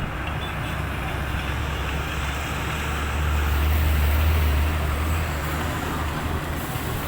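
Low rumble of a motor vehicle over steady outdoor noise. It swells about three seconds in, then eases off.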